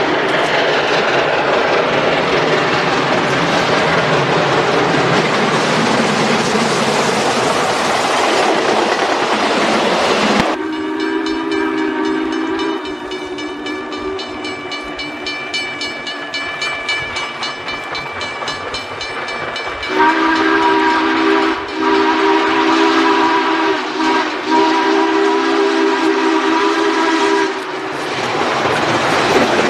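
Canadian Pacific Royal Hudson 2839's steam whistle sounding several notes at once. It blows one long blast of about ten seconds, then a louder series of blasts with brief breaks over the next seven seconds or so. Before and after the whistle, the running noise of the steam train.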